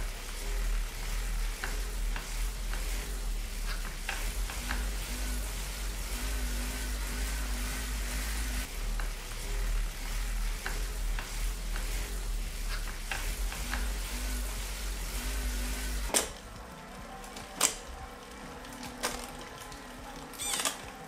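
B'Twin inRide 100 wheel-on magnetic trainer being pedalled: a steady low hum with a loud hiss of the tyre spinning on the roller. About 16 seconds in it cuts to the Smart Zdrive direct-drive trainer, which is much quieter, with a few sharp clicks.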